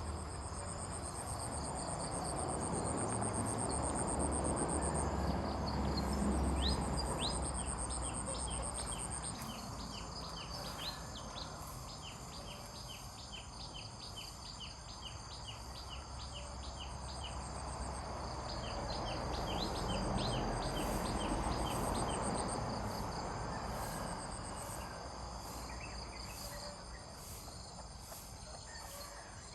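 Insects trilling steadily and high, with rows of rapid short chirps, over a broad rushing noise that swells and fades twice.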